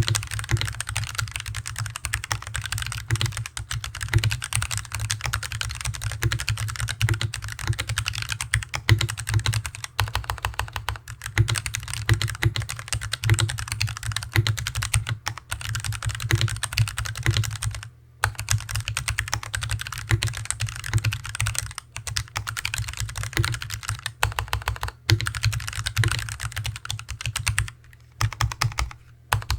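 Hansung TFG ART mechanical keyboard with stock Artbox Red linear switches being typed on steadily, fast key clacks with a heavy boom of desk resonance under each stroke. A few brief pauses in the typing.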